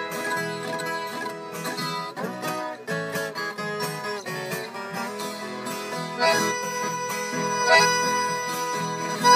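Instrumental Brazilian modão sertanejo music led by plucked guitar strings, moving from note to note at a steady pace.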